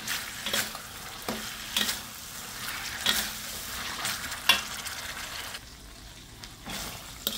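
Metal spatula scraping and knocking against a stainless steel wok as oysters are stirred into a thick, sizzling chili sauce. The strokes stop about five and a half seconds in, leaving only a quieter sizzle, and there is one more knock near the end.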